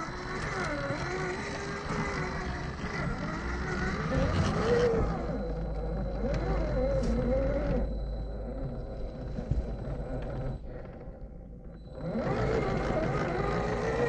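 Electric motor and gear drivetrain of a 1/10-scale RC rock crawler whining, its pitch rising and falling with the throttle. It eases off briefly near the end, then picks up again.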